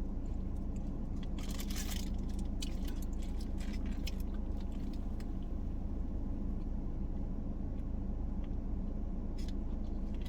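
Steady low hum of a car's cabin with the engine running, overlaid by intermittent crinkling and rustling of fast-food wrappers as a sandwich is handled.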